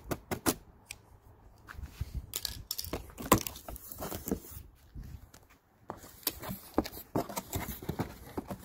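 Cardboard box being opened by hand: its flaps are pulled back and the packing inside is handled, giving irregular rustling, scraping and sharp knocks.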